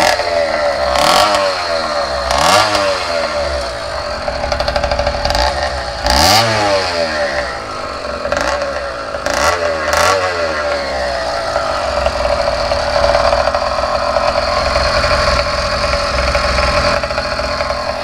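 Zeda Dio 80cc two-stroke kit engine on a motorized bicycle, with a Super Banana expansion pipe. The throttle is blipped several times in the first half, the revs rising and falling sharply each time, then it runs at a steadier speed. The engine is new and still in its break-in period.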